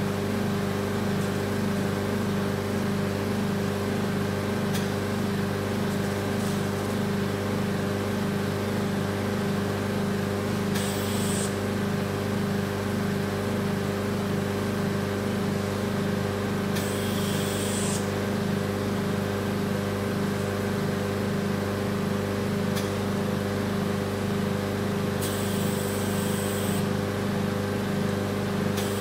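Vacuum RF body-contouring machine running, a steady motor hum pulsing about twice a second as the handle's vacuum suction cycles, with a few short hisses.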